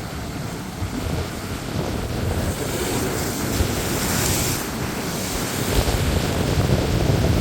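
Ocean surf breaking and washing ashore, with wind buffeting the microphone; a wave's hissing wash swells up around the middle.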